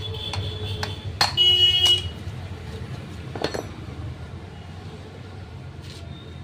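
Hammer blows, metal on metal, against a scooter's rear clutch assembly being knocked apart. There are a few sharp strikes, each ringing on. The loudest comes a little over a second in and rings for under a second, and a softer knock follows later.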